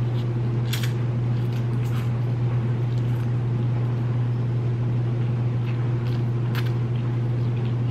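Steady low hum throughout, with a few brief mouth sounds as ramen noodles are eaten with chopsticks.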